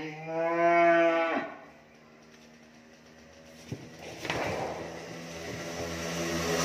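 A cow mooing once: one long call, falling in pitch at first and then held, lasting about a second and a half.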